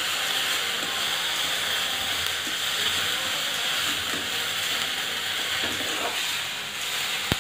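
Chopped capsicum and onion sizzling in hot oil in a steel kadai, a steady hiss, while a spatula stirs them with a few faint scrapes against the pan.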